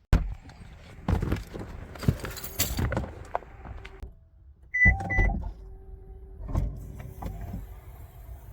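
Rustling and knocks of gear being handled at a car, then a thump and two short high beeps about five seconds in, like a car being locked with its remote.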